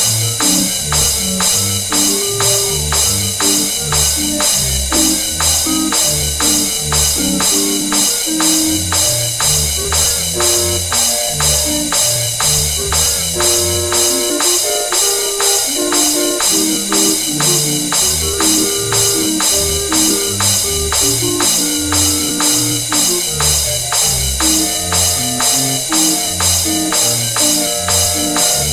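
Instrumental music with a steady beat of about two strokes a second, drums and tambourine over a moving bass line and melody.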